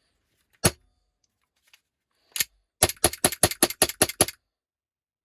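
Airsoft Glock 19 pistol, run on compressed air through a regulator set at 40 psi, firing with sharp snappy cracks: one shot about a second in, another a little past two seconds, then a quick string of about ten shots in a second and a half. The gun is cycling properly after its rebuild.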